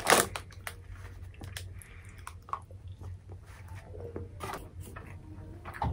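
A person chewing a piece of chocolate, with scattered small clicks and short rustles from the foil wrapper and box. A crinkle of the foil dies away right at the start.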